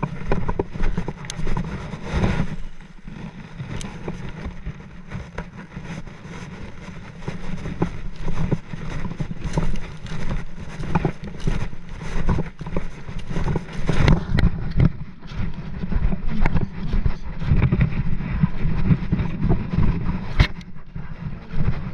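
Wind buffeting the microphone: a low rumble that rises and falls in gusts, with scattered short clicks and knocks throughout.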